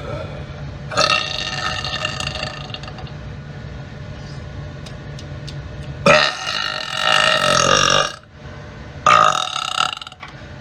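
A woman burping loudly three times: a long belch about a second in, a louder long one around six seconds in, and a shorter one near the end.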